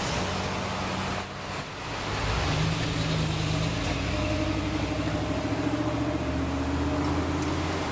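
Road traffic passing close by: cars and trucks driving past with a steady hiss of tyres and air. From about two and a half seconds in, a vehicle's engine hum grows louder, its pitch drifting up and down as it drives through.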